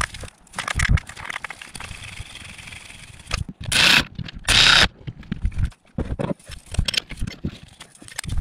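Clicks, knocks and scrapes of metal parts and hand tools being handled during engine reassembly, with two loud half-second rushing noise bursts a little past midway.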